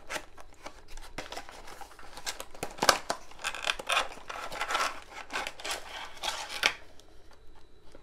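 Cardboard box being opened and a clear plastic blister tray slid out and handled: a run of crisp rustles, scrapes and clicks, busiest from about three to seven seconds in, with one sharp click around three seconds, then quieter near the end.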